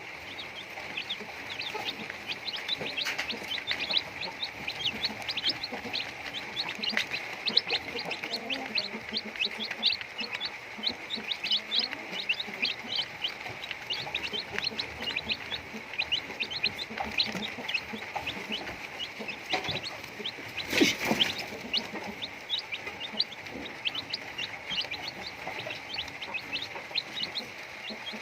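A flock of chickens clucking and cheeping steadily, many short high calls a second, as they feed. A brief louder noise stands out about two-thirds of the way in.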